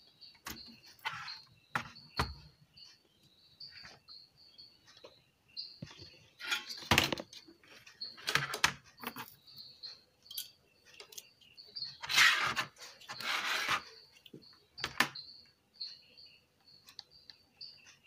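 Clicks, knocks and scraping clatter as a car stereo's front-panel circuit board and metal chassis are handled and set down on a workbench, in several separate bursts, the longest and loudest near the middle. A faint high chirping repeats in the background.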